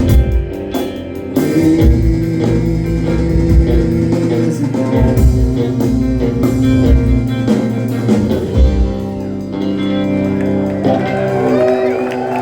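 Live rock band playing the closing bars of a song, guitar over held sustained notes, with low drum and bass hits that stop about nine seconds in. Near the end the crowd starts whistling and cheering as the song finishes.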